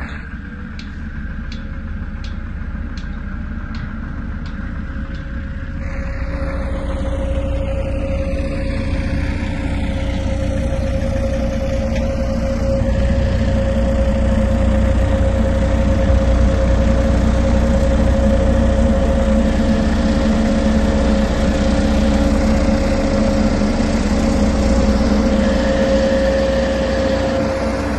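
Diesel engine of an SD110C single-drum soil compactor running with a steady hum, growing louder through the first half as the roller comes closer.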